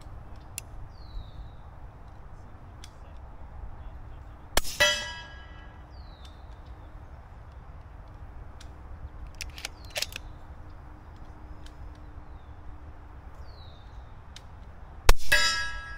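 Two suppressed rifle shots from a SIG Cross .308 with a Q Trash Panda suppressor, firing subsonic rounds: one about four and a half seconds in and one near the end. Each shot is followed at once by the ring of a steel target being hit. A couple of faint clicks fall between the shots.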